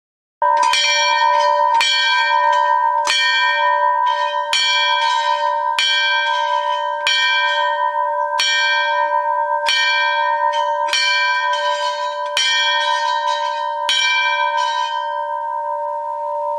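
A temple bell struck in a steady rhythm, about one stroke every 1.3 seconds, each ring carrying on into the next so the bell's hum never dies away. It starts abruptly about half a second in, and the last stroke comes near the end.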